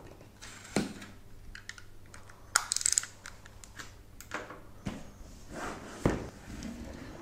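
A CPU cooler's retail box being handled and opened: scattered taps, clicks and knocks of the packaging with brief rustling, the busiest cluster about two and a half seconds in.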